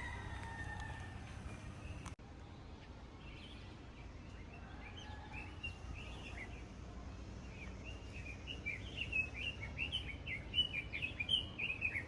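Small birds chirping: quick, high chirps that grow dense and rapid in the last few seconds. A low steady background rumble cuts off abruptly about two seconds in.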